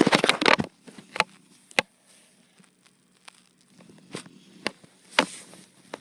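A person snoring loudly, a crackly, rattling snore. One snore opens and lasts under a second, with scattered sharp clicks in the quiet between, and the next snore begins right at the end, about six seconds later.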